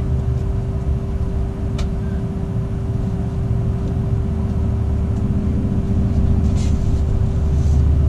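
Fan-Tastic roof vent fan running steadily in a camper, a low rumble under a constant motor hum, with one faint click about two seconds in.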